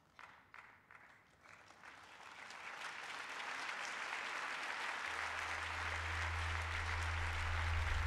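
Audience applause: a few scattered claps at first, swelling into full, steady applause across the room. A low hum comes in about halfway through.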